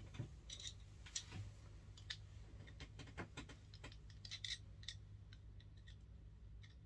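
Faint, irregular small clicks and light scrapes of hand work with a screwdriver on hose fittings, over a low steady hum.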